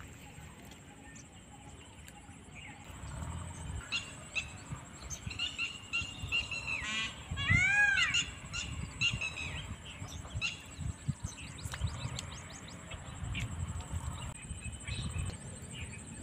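Wild birds calling around open water, in scattered short chirps and calls, with a quick run of arched chirps about halfway through.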